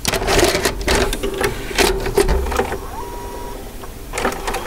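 A machine clattering: irregular clicks and rattles over a steady hum, with a brief steady tone about three seconds in.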